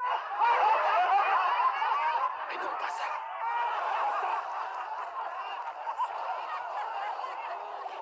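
A crowd of many people laughing together. It breaks out suddenly, is loudest over the first couple of seconds, then carries on steadily.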